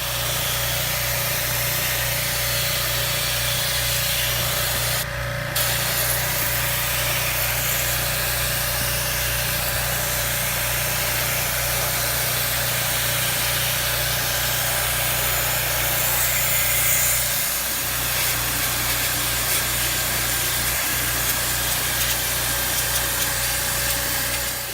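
A machine's motor running steadily under a loud, constant hiss, with a brief break in the hiss about five seconds in.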